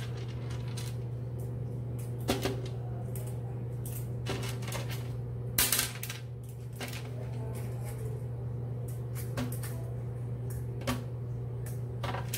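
Small clicks and rustles of hands feeding tiny beads into the neck of a rubber balloon, louder about two and a half seconds in and again near the middle, over a steady low hum.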